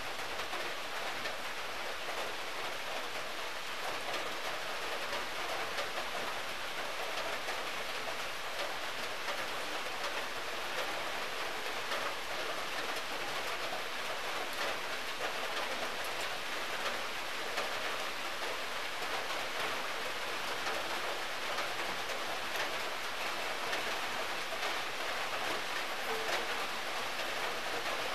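Steady, even hiss of background noise, like rain, with faint scattered ticks.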